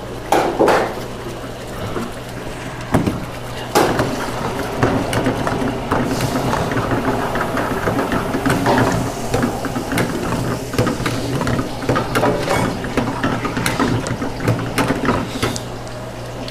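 A utensil stirring and scraping in a cooking pan of gravy, with a few sharper knocks early on and a steady low hum underneath.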